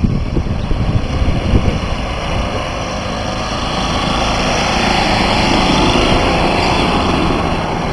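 Several golf carts' small engines running as the carts drive off one after another, a steady engine drone that swells a little midway.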